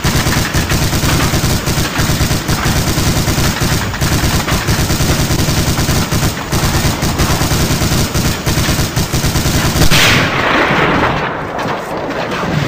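Continuous rapid machine-gun fire, as from the MG-42s firing on the beach. About ten seconds in it gives way to one loud blast that dies away.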